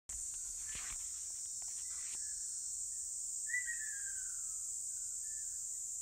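Steady high-pitched drone of summer insects, with a few faint clicks in the first two seconds and a single short bird call with a falling tail about three and a half seconds in.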